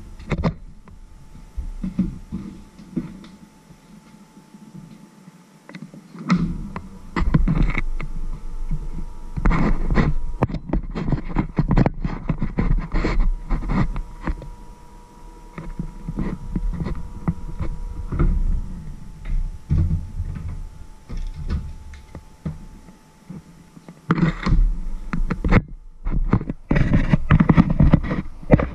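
Handling noise on a camera microphone: a hand and arm rubbing and bumping against it, giving irregular thumps and low rumbling. It goes quieter for a few seconds near the start, and a faint steady tone sits under the middle part.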